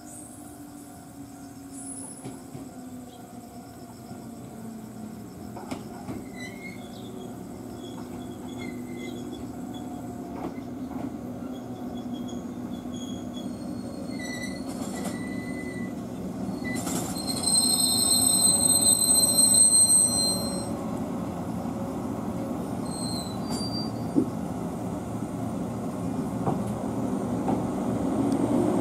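JR West 103-series electric train (converted car KuMoHa 102-3554) rolling in and slowing at a station, its running tone falling in pitch as it slows. About two-thirds of the way in, a high brake squeal rings for a few seconds as it draws to a stop; this is the loudest sound.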